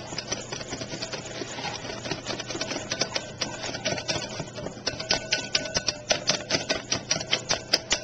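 Batter being beaten by hand in a glass bowl: a rapid, even clicking of the utensil striking the bowl's sides, a few strokes a second. It gets louder and more regular about five seconds in.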